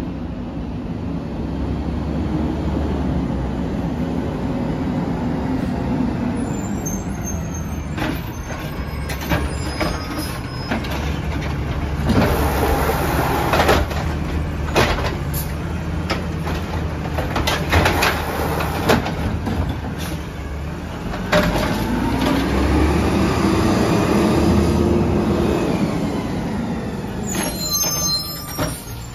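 Compressed-natural-gas Peterbilt 320 garbage truck with an automated side-loading arm. The engine runs steadily and revs up and back down twice as it drives the hydraulic arm, lifting and dumping a trash cart. In the middle there is a series of sharp clanks and bangs as the cart is shaken out into the hopper and set back down.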